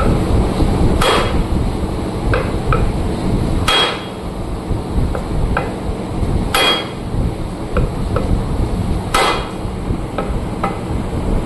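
Hammer striking metal four times at an even, slow pace, each blow ringing briefly, with lighter taps in between: hammering on a tractor's rear axle parts during a bearing and oil-seal repair.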